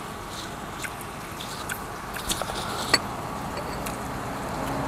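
Scattered sharp clicks of utensils on dishes and chewing at a hot-pot meal, over a steady background hum that grows louder near the end.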